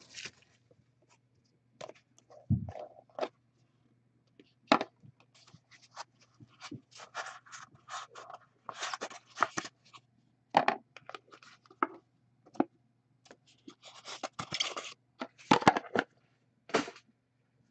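Hands opening an Upper Deck The Cup hockey card box: scattered scrapes, rustles and clicks as the black box and its cards are handled, slid out and laid on the table, with a dull knock about two and a half seconds in. A faint steady hum runs underneath.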